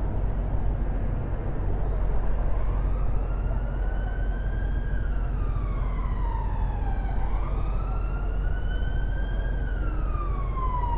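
An emergency vehicle's siren sounding a slow wail, rising and falling twice over about eight seconds, starting a couple of seconds in. It sits over a steady low rumble of road traffic.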